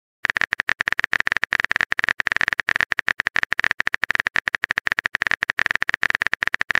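Rapid, even run of phone-keyboard typing clicks, about a dozen a second, each with a high ping: a texting-app typing sound effect while the next message is being composed.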